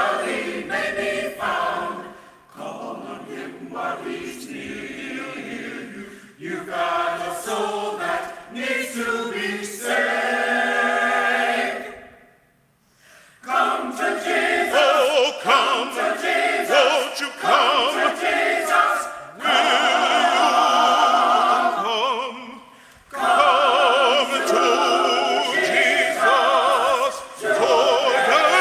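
Choir singing in phrases, with wavering held notes and one short pause a little under halfway through.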